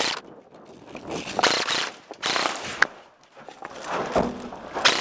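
Bursts of rustling and scuffing from a player running in airsoft gear, picked up by a body-worn camera, with a few sharp clicks.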